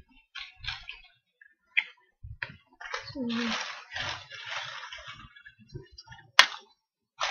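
Rustling and scattered clicks of close handling, with a brief murmur of voice, and one sharp click about six and a half seconds in.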